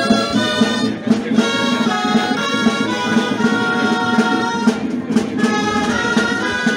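Traditional dance music from a band of wind instruments playing a melody, held reedy notes changing every fraction of a second over a steady low note.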